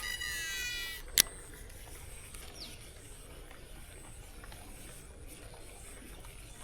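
Fishing reel's spool whirring with a gliding whine for about a second as the lure is cast, then one sharp click.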